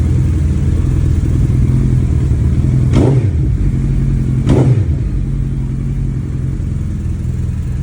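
Suzuki Hayabusa's inline-four engine idling on a cold start, blipped twice in quick succession about three and four and a half seconds in, each rev rising and falling back to a steady idle.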